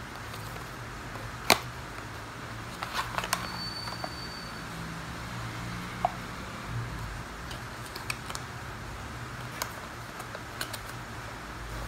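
Scattered clicks and taps from handling a small cardboard box and a coiled tattoo cable with a metal plug, the loudest a sharp click about a second and a half in and a quick cluster about three seconds in, over a steady low background hum.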